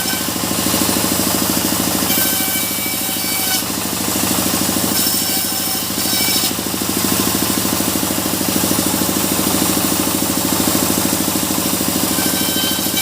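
Sawmill machinery running steadily, its engine pulsing fast and evenly under the saw. A thin high whine comes and goes a few times.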